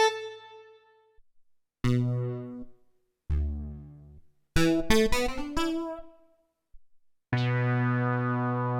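Kurzweil K2vx synthesizer preset being auditioned: single keyboard notes that strike and fade away, a quick run of several notes about halfway through, then a held chord that sustains near the end.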